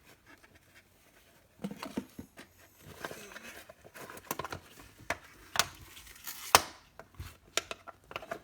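A trading-card pack being torn open by hand: the wrapper crinkling and tearing in irregular crackles, with a few sharper snaps, starting about a second and a half in.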